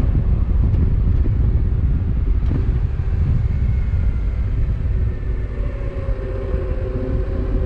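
Motorcycle being ridden on the open road: a steady low rumble of engine and wind noise on the bike-mounted microphone. About two thirds of the way in, a steady engine hum comes through more clearly.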